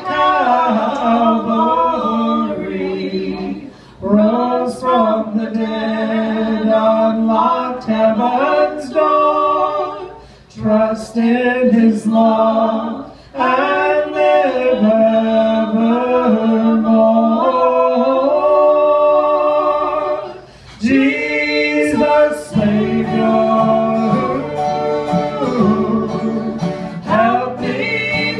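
Gospel group singing in harmony, a woman's voice together with men's voices, backed by acoustic guitar and mandolin, with short breaks between sung phrases.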